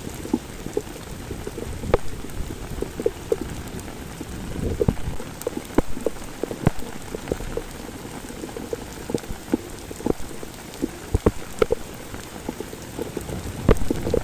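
Heavy rain falling on a street: a steady rushing hiss with many sharp, irregular drop impacts close by.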